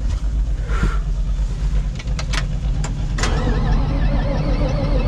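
Tractor engine being cranked on the starter in the cold. After a few clicks, from about three seconds in a whine wavers up and down as the engine turns over without firing. It is hard-starting, with no block heater plugged in.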